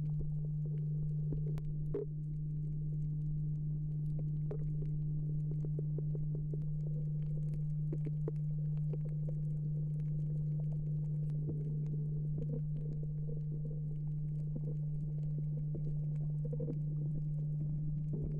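Underwater recording noise: a steady low hum with faint, scattered clicks and crackles throughout.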